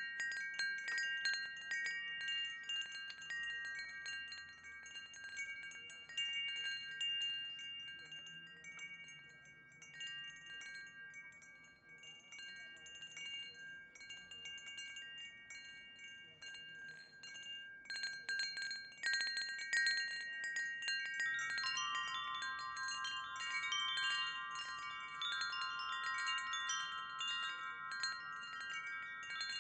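Wind chimes ringing, many struck tones overlapping and dying away slowly. It grows quieter for a while, then a dense cluster of strikes comes about two-thirds of the way in, and a new set of lower notes joins soon after.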